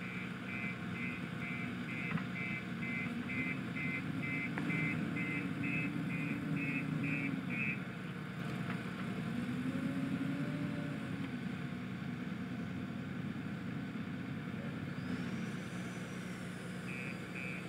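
JCB 3DX backhoe loader's diesel engine running, rising in pitch twice as it works under load, with a reversing alarm beeping about two to three times a second through the first half and starting again near the end.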